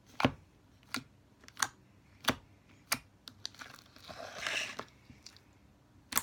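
Homemade slime with beads and glitter being poked with the fingertips, giving crisp clicking pops about every two-thirds of a second. About four seconds in comes a longer, noisier sound as the slime is pulled up out of its plastic tub, then one more click near the end.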